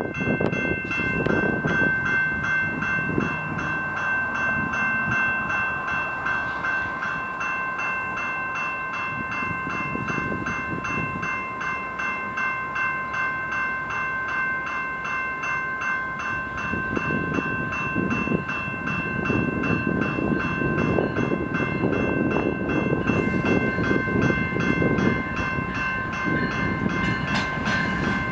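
VIA Rail passenger train led by a P42DC diesel locomotive approaching, while a bell rings rapidly and steadily throughout. The locomotive's engine and wheel noise grow louder over the last ten seconds or so as the train draws near.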